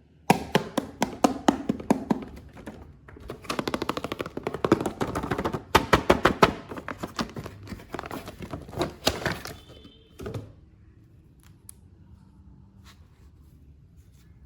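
Hard plastic toy parts and packaging being handled: a dense run of clicks and knocks that stops about ten seconds in, leaving quiet room tone.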